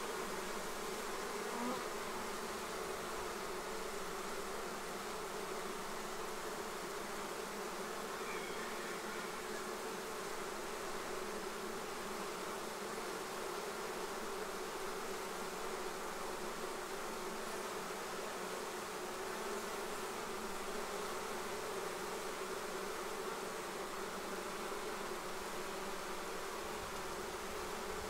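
A swarm of honey bees humming steadily as many bees fly around the hive.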